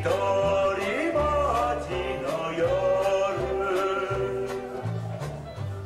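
A song with a singing voice over a bass line and a steady drum beat.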